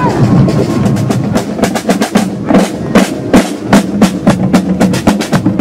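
Marching band snare drums playing a street-parade cadence, with sharp strokes coming thick and fast from about a second in.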